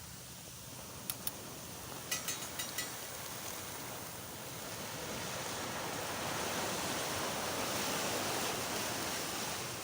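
Waves washing onto a sandy beach, the surf swelling louder after about five seconds. A few sharp clicks come in quick clusters in the first three seconds.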